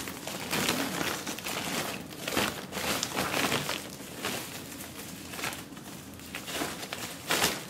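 Plastic protective wrapping crinkling and rustling on and off as it is pulled away from a new camcorder.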